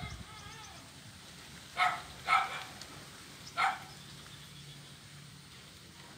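Three short, high-pitched animal calls: two in quick succession about two seconds in, and a third about a second later.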